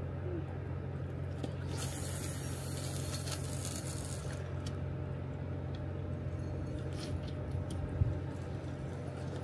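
Steady low outdoor rumble, with a burst of hiss from about two to four seconds in and a single thump about eight seconds in.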